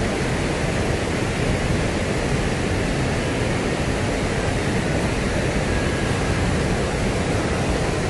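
Wide river cascade rushing over rock ledges and rapids in high flow, a steady, unbroken rush of muddy floodwater.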